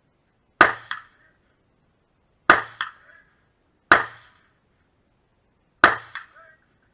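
Four AR-15 rifle shots fired at an unhurried pace, one to two seconds apart. Each shot is followed about a third of a second later by a fainter second crack.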